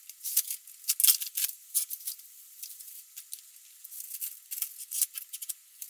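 Plastic food packaging crinkling and rustling, with light knocks, as instant-noodle packs and cups are handled and set on pantry shelves. It comes as crisp, irregular crackles, loudest about a second in.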